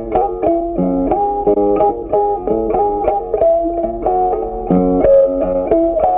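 Background music: a plucked guitar playing a melody of short picked notes, about three or four a second.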